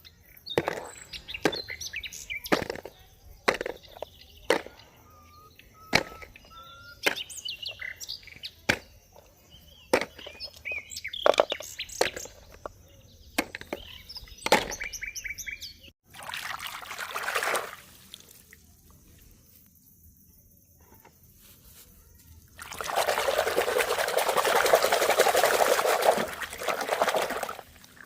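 Plastic toy vehicles knocking and clattering as they are handled, with short bird chirps among them. Then a short burst of running water, and later a longer spell of water pouring and splashing as the toys are washed.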